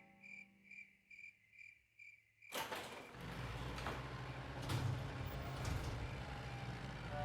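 Crickets chirping in a steady rhythm, about two to three chirps a second. About two and a half seconds in, a sudden loud rushing noise with a low hum cuts in over them, with two or three sharp knocks.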